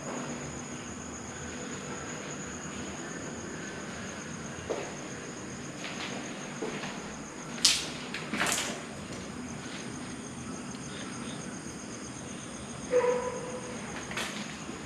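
Crickets trilling steadily in a high, finely pulsing drone. A few sharp knocks come about halfway through, and a short squeak near the end.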